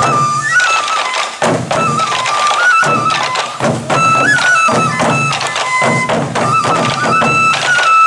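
Traditional sansa odori music: sansa daiko drums slung at the dancers' waists struck with sticks in a repeating pattern, under a high bamboo flute (fue) melody played in held notes that step up and down.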